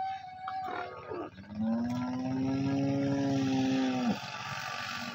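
Water buffalo bellowing: a couple of short calls, then one long, steady, low call of about two and a half seconds that ends with a drop in pitch. A steady rushing noise rises behind it partway through.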